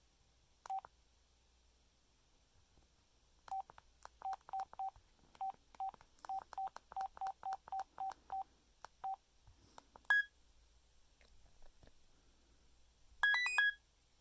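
LG AX145 cell phone's keypad beeps: short identical beeps at one pitch, one on its own and then a quick, uneven run of over a dozen from about three and a half to nine seconds in, as keys are pressed through the phone's menu. A single higher beep comes about ten seconds in, and near the end there is a quick half-second run of rising notes from the phone.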